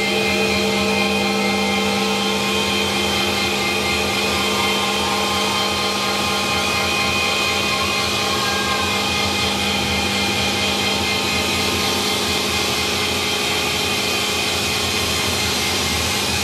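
Dense, steady drone music: many held tones layered over a thick, noisy rumble, barely changing throughout.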